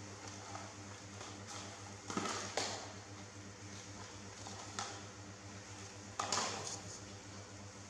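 A clear plastic cup knocked and swept across a tile floor by a baby monkey, clattering and scraping in three short bouts, about two, five and six seconds in. A steady low hum runs underneath.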